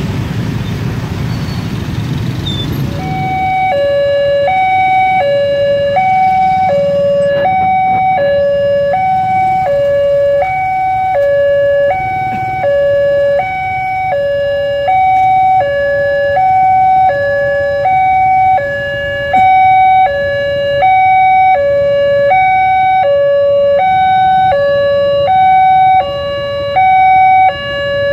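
Railway level-crossing electronic warning alarm. It starts about three seconds in, two tones alternating high and low at roughly one pair a second, the signal that the crossing is closing for an approaching train. Before it starts, motorcycle and road traffic noise.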